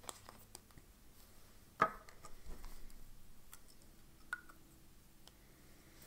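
Light scattered clicks and taps from handling a pen and notebook on a desk, the loudest a single sharp click about two seconds in.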